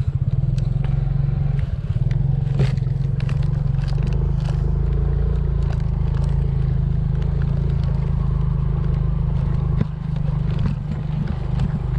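Motorcycle engine running steadily on a ride along a bumpy dirt track, with frequent clattering knocks and rattles from the bike over the rough ground. The sound drops a little for a moment about ten seconds in.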